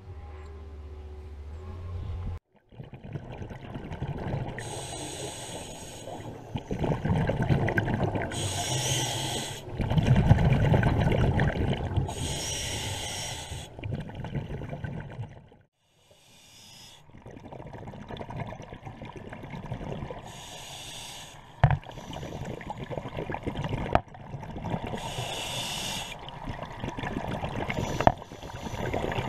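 Scuba diver breathing through a regulator underwater: a hiss with each inhale every few seconds, alternating with low, rumbling bubbling exhales.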